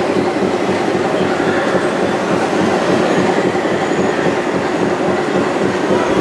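Steady, unbroken rumbling and clattering drive noise from a radio-controlled model tractor's electric motor and gearbox as it drives over loose sand.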